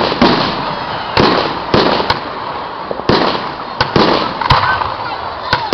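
Aerial fireworks shells bursting overhead, about one bang a second, each trailing off in a fading rumble, with a few sharper cracks in between.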